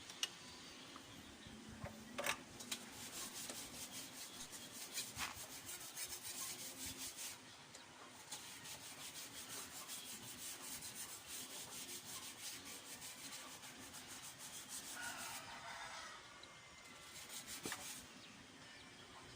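14 mm socket wrench ratcheting as the oil drain plug of a Bajaj CT 100 motorcycle is unscrewed: two long runs of fast, even clicking, with a few sharp metal knocks between them.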